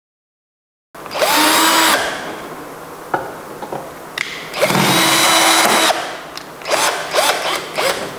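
Cordless drill taking screws out of an inverter's sheet-metal cover. There are two runs of about a second each, the motor whine rising as it spins up, then several short bursts near the end.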